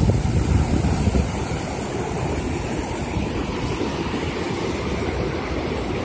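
Tosno river in high spring water rushing over shallow rapids: a steady wash of water noise. Wind on the microphone adds low rumble, heaviest in the first second or so.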